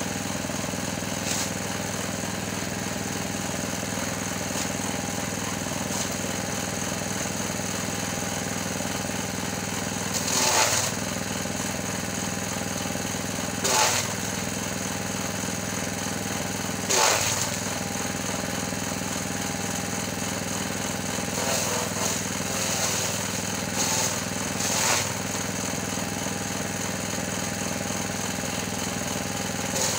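Small petrol engine driving a forage chopper, running steadily, with three loud chopping bursts and then a run of smaller ones as green fodder stalks are fed into the blades. The engine bogs down briefly under each load.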